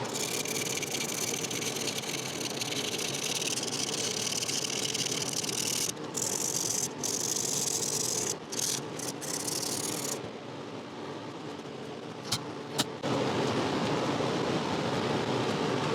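A cloth rubbing over the wooden chair's finish, making a steady hiss that breaks off briefly a few times, with two sharp clicks about twelve and thirteen seconds in. A steady hum like a fan runs underneath.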